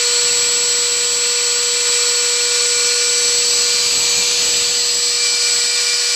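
Wood router serving as the spindle of a homemade CNC machine, running at high speed while its bit carves lettering into a wooden board: a steady high whine over an even hiss.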